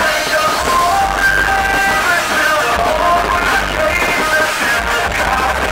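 Music: a song with a singing voice, steady and loud, its held melodic notes standing out.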